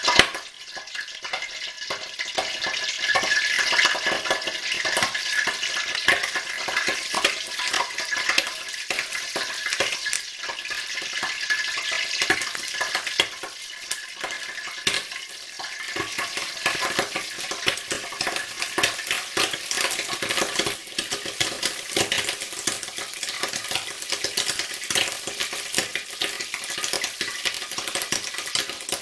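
Water poured into hot oil in a wok: a splash right at the start, then a steady, dense crackle of sizzling and spattering as the water and oil boil together.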